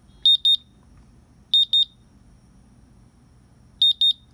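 Personal radiation dosimeter alarming: three pairs of loud, high-pitched beeps about two seconds apart. Its alarm threshold is set low, and a 10 microcurie cesium-137 test source is setting it off.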